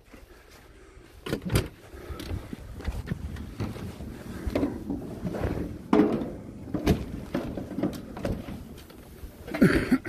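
Handling noise on a phone held in a gloved hand: rubbing and rustling, with a few sharp knocks.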